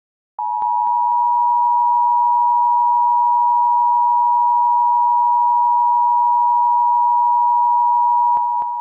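Emergency Alert System attention signal: a steady two-tone alert tone just under 1 kHz, sounded for about eight seconds before an emergency announcement. It starts about half a second in and fades near the end.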